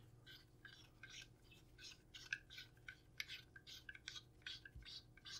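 Faint, irregular clicking and scraping of an ATI Bulldog shotgun's front cap being unscrewed by hand on its fine threads.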